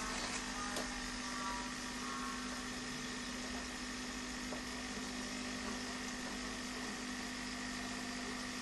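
Steady hum of running aquarium equipment over an even hiss.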